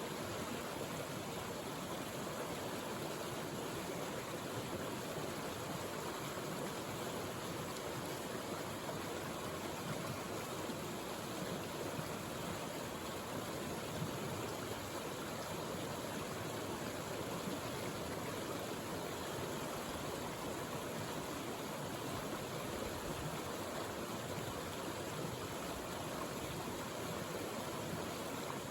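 A mountain stream rushing steadily over its bed, running slightly swollen with more water than usual.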